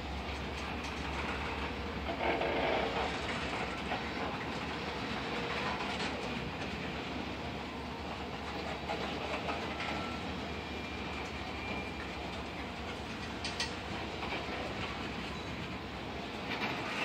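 Loaded freight cars rolling past on the rails: a steady rumble of steel wheels, with a few sharp clicks as the wheels cross rail joints.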